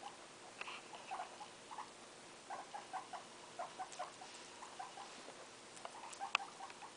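Guinea pigs making short squeaks in quick clusters, with a sharp click near the end.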